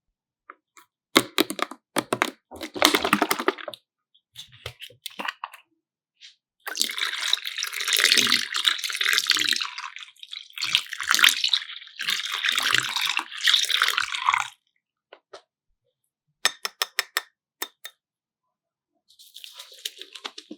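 Liquid running or splashing in three long stretches of several seconds each, with sharp clicks and knocks before and after.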